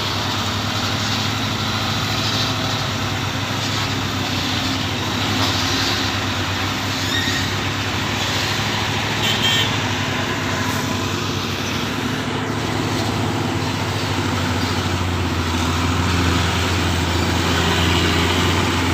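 Heavy truck engine running steadily under load on an uphill climb, mixed with passing road traffic; the engine hum grows louder near the end.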